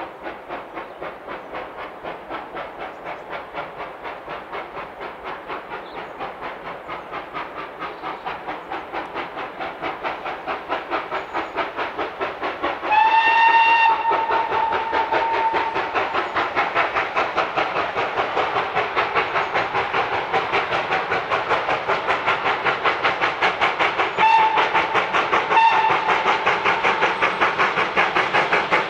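GWR Manor class 4-6-0 steam locomotive 7812 'Erlestoke Manor' working a train, its exhaust beating quickly and evenly and growing louder as it approaches. About halfway through it gives one long blast on its whistle, and near the end two short toots.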